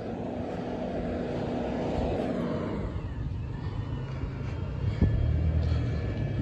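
Front-loader garbage truck's diesel engine running at a distance. A steady hum fades out about three seconds in, a deeper engine note then comes up, and there is a single knock about five seconds in.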